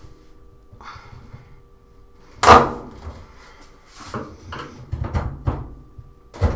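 The plastic retaining clip of a top-load washing machine's top panel snaps free with a loud crack as it is pried up, about two and a half seconds in. It is followed by several smaller knocks and clatters of the panel and the pry tool, and another sharp knock near the end.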